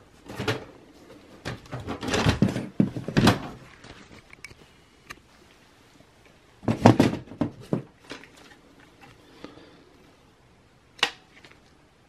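Dell OptiPlex 7040 mini tower's plastic front bezel being unclipped and pulled away from its metal chassis: clusters of sharp plastic clicks and knocks, the loudest about two to three seconds in and again about seven seconds in, with a single click near the end.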